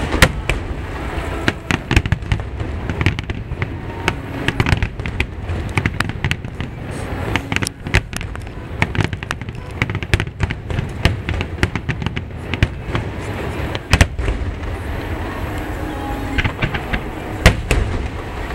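Aerial firework shells bursting in a rapid finale barrage: a dense run of booms and sharp cracks over a continuous low rumble.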